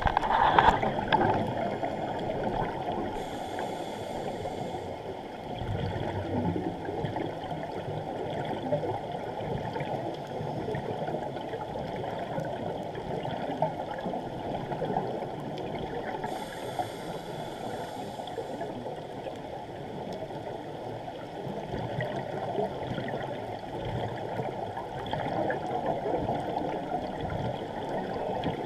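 Scuba divers breathing through regulators underwater: a steady low bubbling rumble of exhaled bubbles, with two brief hisses, about three and about sixteen seconds in.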